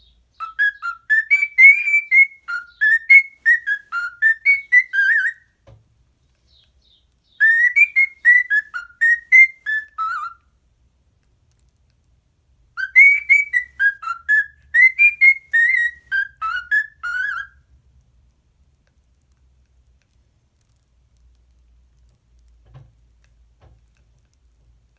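Cockatiel whistling its song: three phrases of quick whistled notes that rise and fall, each a few seconds long, separated by pauses of about two seconds.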